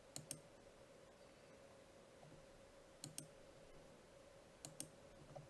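Faint computer mouse clicks in three quick pairs, about 0.2 s apart within each pair, as walls are selected in a drafting program, over near silence with a faint steady hum.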